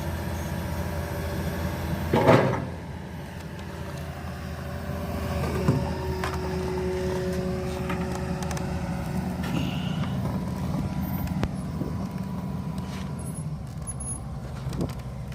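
Diesel engine of an excavator running steadily as it loads onto a vehicle, with a loud sudden noise about two seconds in and a held higher tone for a few seconds in the middle.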